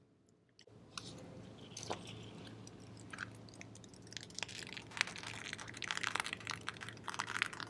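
Baking soda and vinegar reaction with washing-up liquid fizzing as a thin jet of foam sprays up from a small pipe in a bottle's bung. A steady fizz begins about a second in, and crackling, spattering clicks grow much denser after about four seconds.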